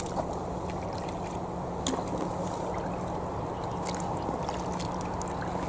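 A two-person kayak being paddled: water sloshing and gurgling along the hull, with scattered small splashes and drips from the paddles, the clearest about two and four seconds in. A steady low hum runs underneath.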